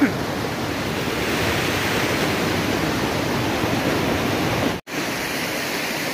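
Glacier-fed mountain stream rushing over rocks, a steady wash of water noise that cuts out for an instant a little before the end and then resumes.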